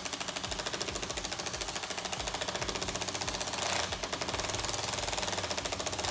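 Handheld power tool running with a rapid hammering rattle, about ten knocks a second, as it drives the threaded rod of a glue-pull bridge puller to lift the dent.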